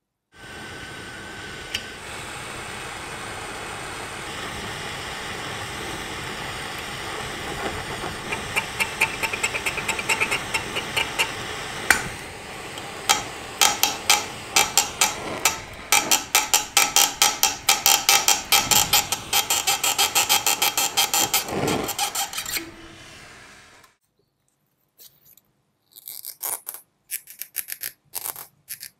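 Gas torch flame hissing steadily on a small rusty metal shaft, with a run of rapid sharp metallic clicks and taps in its second half. The hiss dies away about two-thirds of the way through, leaving a few light clicks of the small metal part being handled.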